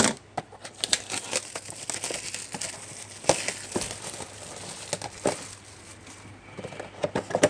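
Packaging on a sealed trading-card box crinkling and tearing as it is unwrapped and opened, in quick irregular crackles with louder rips about a second in, near the middle and around two-thirds through.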